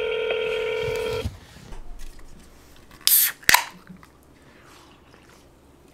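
A telephone ringback tone through a phone's speaker, one steady ring that stops about a second in, as an outgoing call rings at the other end. About three seconds in, a brief burst of noise and then a sharp click.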